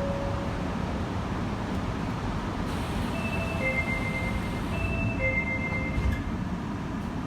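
Osaka Metro 30000 series train door chime: a two-note falling chime played twice in a row about three seconds in, over the steady hum of the standing train. A single thump follows about six seconds in.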